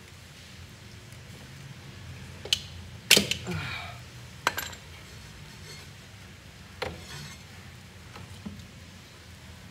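Hand tools clinking against the metal and plastic parts of a washing machine's motor housing during a repair: four sharp clicks, the loudest about three seconds in.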